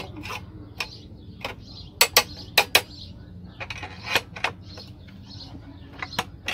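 Steel wire rod clinking and clicking against the angle irons of a homemade stirrup bender as it is levered round with a steel bar, bending it into a column stirrup. Sharp, separate metallic clicks, the loudest a few about two to three seconds in.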